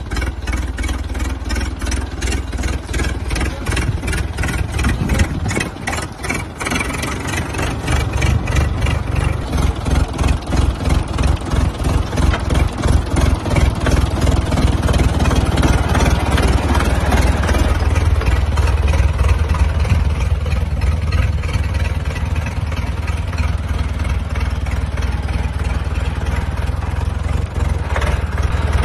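Vehicle engine running, with a regular pulsing beat for the first several seconds that then evens out into a steadier, somewhat louder run.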